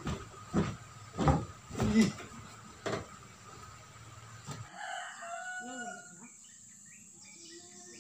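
A few sharp knocks and thumps in the first three seconds, then, after the room hum cuts off, a rooster crowing about five seconds in, with fainter calls following.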